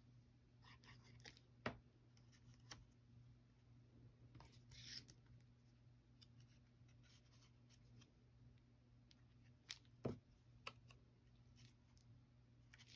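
Near silence over a faint steady hum, with scattered faint clicks and taps and a brief soft rustle about five seconds in: small cardstock pieces and craft tools being handled on a work surface.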